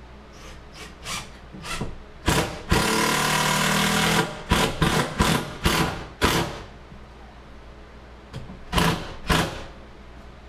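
Power drill driving a lag bolt through a microwave's wall-mounting bracket: one run of about a second and a half, then several short trigger bursts as the bolt is snugged tight, and two more short bursts near the end.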